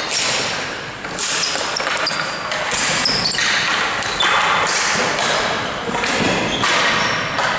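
Ball hockey game play echoing in a large hall: sticks and ball knocking and scraping on the floor, with short high squeaks from players' shoes.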